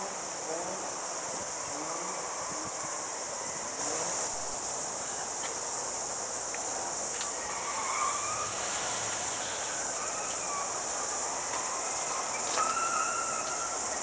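A steady, high-pitched chorus of insects, with faint, indistinct voices of people in the distance.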